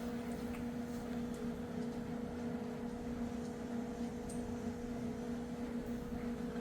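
A steady hum made of two tones, one low and one about an octave above, over a faint background noise, with a few faint ticks.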